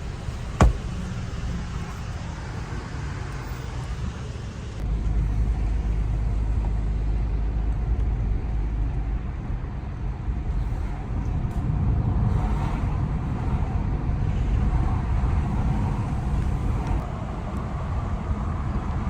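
Car road noise, a steady low rumble with hiss. A sharp click comes about half a second in, and the rumble grows louder about five seconds in, as if the car has picked up speed.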